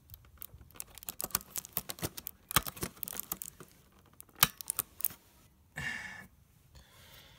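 Small clicks and taps of fingers working on a computer motherboard, prying the old CR2032 CMOS coin-cell battery out of its holder, with two sharper snaps about two and a half and four and a half seconds in. A short rustle follows about six seconds in.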